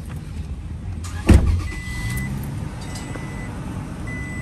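Motor traffic running steadily, with a sharp knock about a second in and a few short, high, thin beeps.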